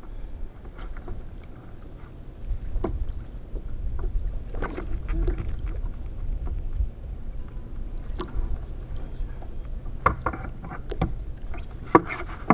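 Wind rumbling on the microphone and water lapping at a kayak's hull, with scattered small knocks. In the last couple of seconds come splashes and hard knocks as a striped bass is swung out of the water.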